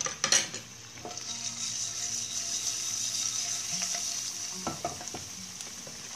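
Chopped ginger sizzling in hot oil in a wok: a steady high sizzle that builds after about a second and holds, with a few sharp clicks near the start.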